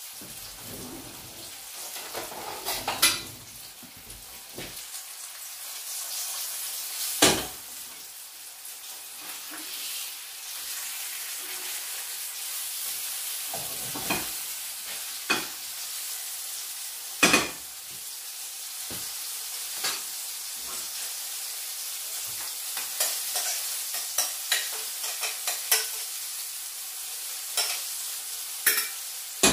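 Sea bass fillets sizzling steadily as they pan-fry, with sharp knocks and scrapes of a utensil against the pans now and then.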